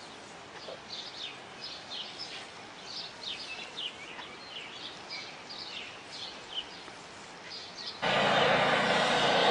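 Small birds chirping repeatedly, many short falling notes, over faint outdoor background noise. About eight seconds in, a loud steady machine noise cuts in abruptly and drowns them out.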